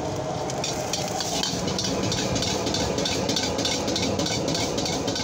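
Fried rice stir-fried in a wok over a gas burner that runs with a steady rumble; the steel ladle scrapes and tosses the rice against the wok in regular metallic strokes, about three a second, starting about half a second in.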